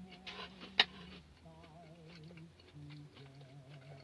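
Faint background Christmas music with slow held notes, under quiet chewing and the crinkle of paper as fried chicken is handled and eaten, with one sharp click just under a second in.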